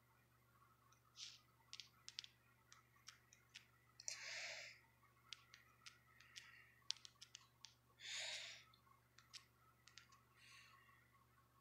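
Faint, scattered clicks of fingers tapping a phone's touchscreen keyboard, with two short rushes of hiss about four and eight seconds in.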